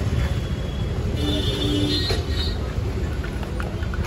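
Busy market-street din: a steady low rumble of traffic and crowd, with a held pitched tone about a second long starting about a second in.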